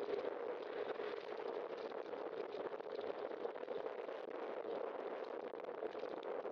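Steady crackling hiss of a bicycle rolling over wet pavement, picked up by a bike-mounted camera.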